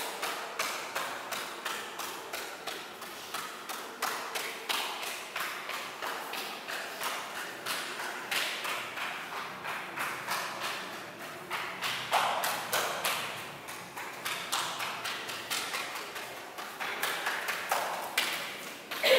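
A steady run of sharp taps and knocks on a hard surface, about two to three a second, some with a short ring, and a louder knock near the end.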